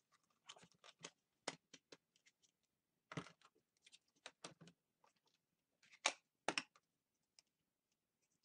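Faint scattered clicks and knocks of plastic Play-Doh tubs being handled and moved, the loudest a pair about six seconds in.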